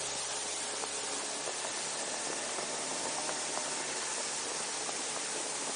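Steady loud hiss of wind and rushing air over the microphone of a small boat under way, with a faint steady motor hum underneath.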